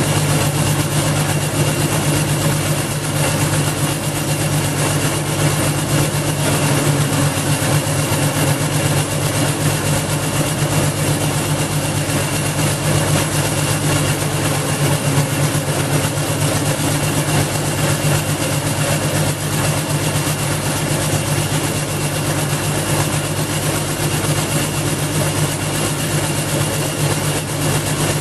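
Garden wood chipper's 5.5 HP Briggs and Stratton single-cylinder engine running steadily at a constant speed; loud.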